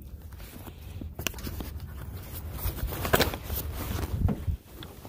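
Handling noise on a small fishing boat: a run of knocks, clicks and rustles as the camera and tackle are moved about, the loudest knocks about a second and three seconds in, over a low steady rumble.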